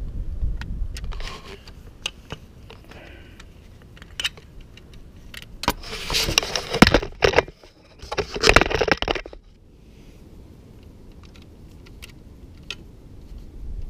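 Metal hand tools and small fasteners clicking and clinking against each other and the motorcycle's parts, with two louder stretches of rattling near the middle.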